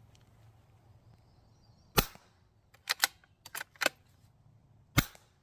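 Two suppressed shots from a Savage Mark II bolt-action .22 LR rifle fitted with an Anechox-22 suppressor, firing CCI Quiet semi-auto ammunition, each a short sharp crack, about three seconds apart. Between them comes a run of quieter metallic clicks as the bolt is worked to chamber the next round.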